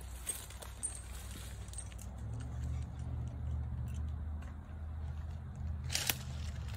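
A low engine-like hum that swells through the middle and fades, with scattered light clicks and one sharp click about six seconds in.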